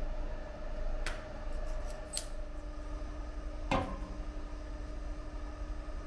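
A mortar test cylinder set down on a stainless-steel platform scale: one sharp knock with a brief metallic ring, after a couple of light clicks. A faint steady hum runs underneath.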